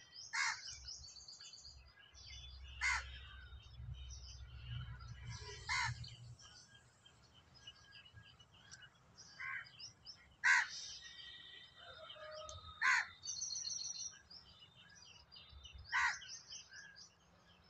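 A crow cawing every few seconds, about six times, with smaller birds chirping in the background.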